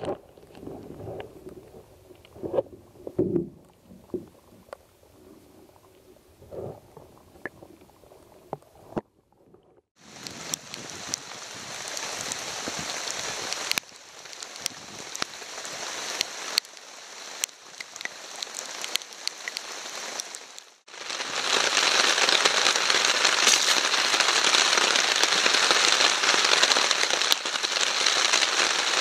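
Muffled low knocks and thumps heard underwater for the first nine seconds, then a steady hiss of rain falling. About twenty-one seconds in the rain becomes louder and denser, with sharp crackles from a wood campfire.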